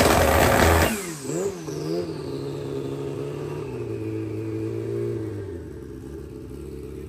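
Suzuki drag motorcycle's engine revved hard on a stand, then the throttle is snapped shut about a second in. It blips twice and settles into a steady idle that drops a little lower near the end, while a high whine slowly falls away.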